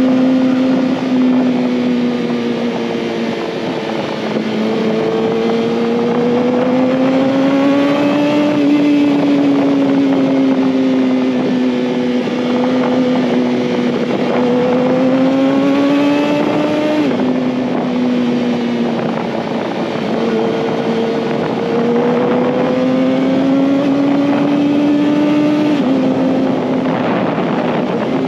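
Kawasaki ZX-6R's 636 cc inline-four engine running at high revs while riding. The pitch rises and falls slowly and drops sharply twice, about two-thirds of the way through and near the end.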